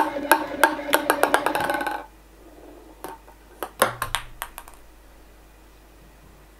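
Ping pong ball bouncing on a plywood plate: sharp taps about three a second that quicken into a rapid patter and die away about two seconds in as the ball settles. A few scattered light knocks follow near the middle, over a faint steady hum.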